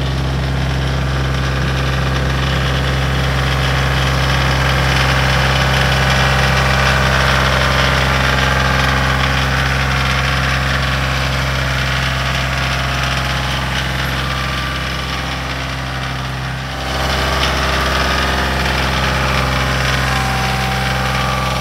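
Kioti compact tractor's diesel engine running steadily at idle, close by, dipping briefly about sixteen seconds in before steadying again.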